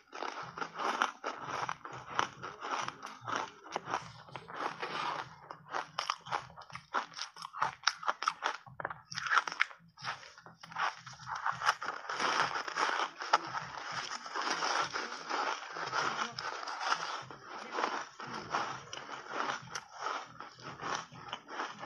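Foam block ice coated in matcha powder being bitten and chewed: dense, rapid, irregular crunching and crackling, with a short lull about ten seconds in.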